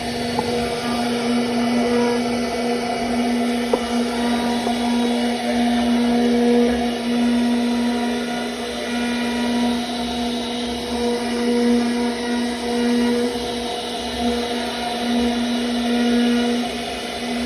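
CNC router spindle running with a steady high whine, its loudness wavering slightly.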